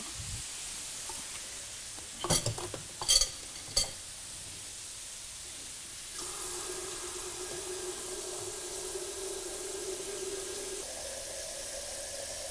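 A few sharp knocks about two to four seconds in, then tap water running into a plastic electric kettle from about halfway, a hiss with a steady ringing tone that jumps higher near the end.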